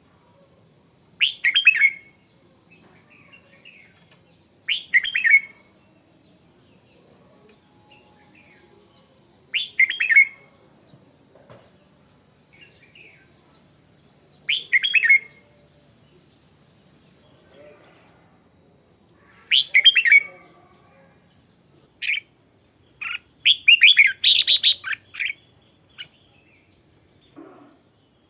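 Red-whiskered bulbul singing short, bright phrases about every five seconds, then a quicker run of several phrases near the end.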